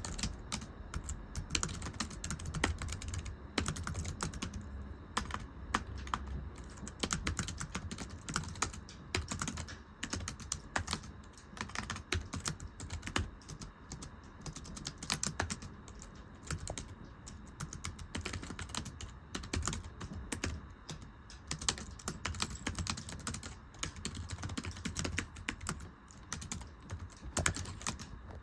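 Typing on a very thin, low-profile computer keyboard: a fast, continuous stream of light, slappy key clicks.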